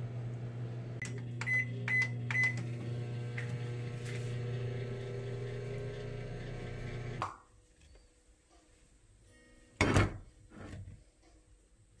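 Microwave oven running with a steady low hum, a few short beeps about a second in. The hum cuts off about seven seconds in, and a sharp click follows near ten seconds.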